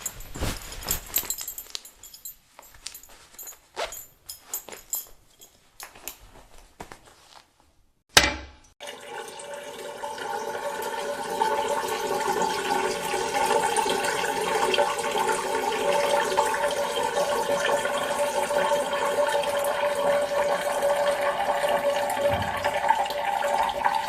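Scattered knocks and handling sounds, then a sharp click about eight seconds in, after which a steady stream of water runs into a toilet and grows louder a few seconds later.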